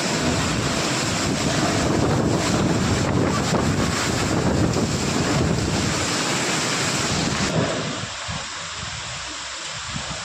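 Strong wind and heavy rain, with gusts buffeting the microphone; the noise drops and thins suddenly about three quarters of the way through.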